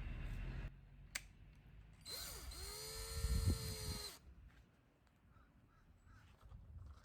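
Cordless drill/driver driving a screw into a wall anchor: the motor whine spins up, runs steadily for about two seconds, then stops. A short click comes about a second before it.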